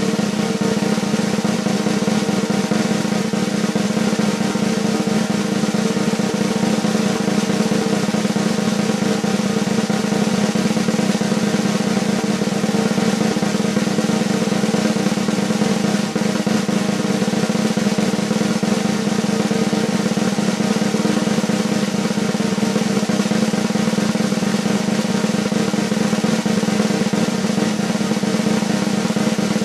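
Snare drum roll, held steady at an even level throughout, the kind of long suspense roll used before an announcement at a ceremony.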